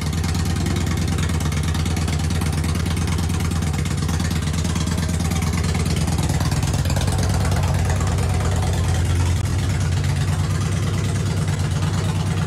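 Yamaha Bolt's air-cooled V-twin engine idling steadily, with an even low pulsing throb.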